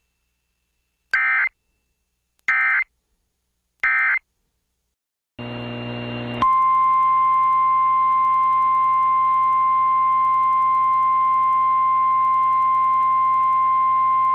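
NOAA Weather Radio emergency alert: three short buzzing bursts of SAME header data about a second and a quarter apart, then the radio's hum and hiss. About six and a half seconds in, the steady single-pitch 1050 Hz warning alarm tone comes on and holds.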